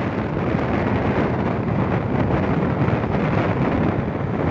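Wind buffeting the microphone of a moving motorcycle, a steady rushing noise with the engine and tyre noise blended underneath.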